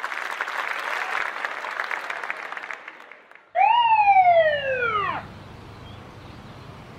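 A police car siren gives a single short whoop, rising briefly and then falling, a little past the middle. Before it there is a crackling hiss, and after it a low, steady hum like a car running.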